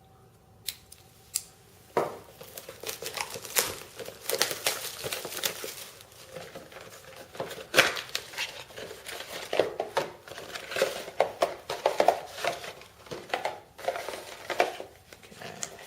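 Packaging of a sealed box of trading cards being torn open and crinkled by hand. There are a couple of light clicks at first, then from about two seconds in, continuous rustling, crackling and tearing.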